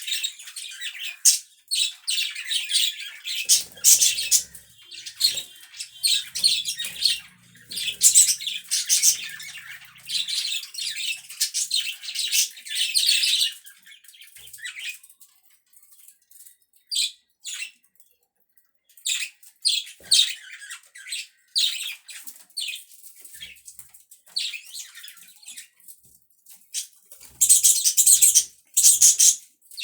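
Pet budgerigars chirping and chattering in quick high-pitched bursts. The calls are dense at first, thin out around the middle, and grow busy and loud again near the end.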